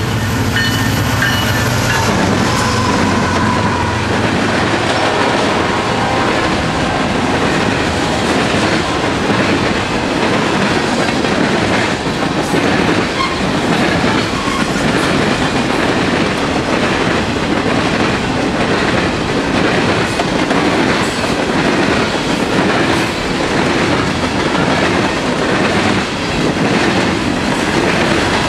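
Union Pacific diesel locomotives rumble past close by. A long freight train of boxcars and covered hoppers follows, its wheels clicking steadily over the rail joints in a continuous clickety-clack.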